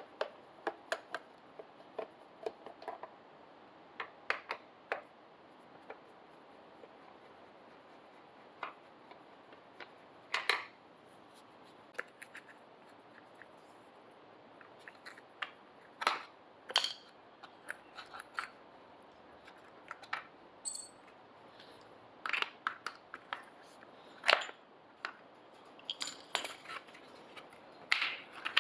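Irregular clicks, clinks and light knocks of tools and small metal parts being handled. A few sharper ones stand out near the middle and toward the end.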